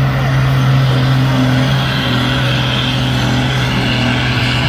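Pickup truck engine running at high revs, loud and nearly steady in pitch, with a slight dip about two seconds in.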